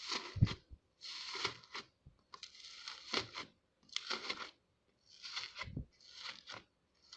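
Slime being squeezed and pressed by hand: crackly, crinkly bursts about once a second, several ending in a sharp pop or click.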